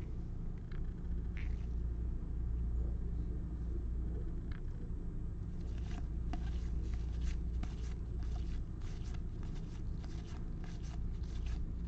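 2021 Topps Series 1 baseball cards being flicked off a stack one after another by gloved hands: a few scattered card snaps, then a fast irregular run of them from about halfway through. A steady low hum runs underneath.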